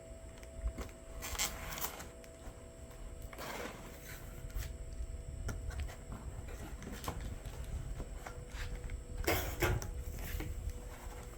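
Packing tape being pulled off and a cardboard shipping box opened by hand: scattered rustles, scrapes and clicks, with louder bursts about a second in, about three and a half seconds in, and near the end.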